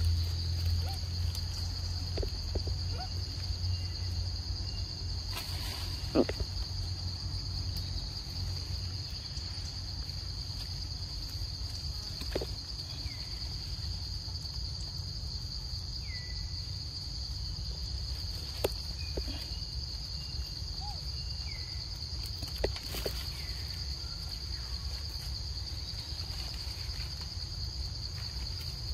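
Steady high-pitched drone of insects, with a low rumble underneath. Scattered soft clicks and taps and a few brief falling chirps come through over it.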